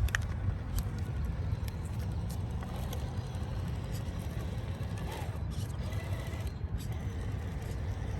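Steady low rumble of outdoor background noise with a few faint clicks.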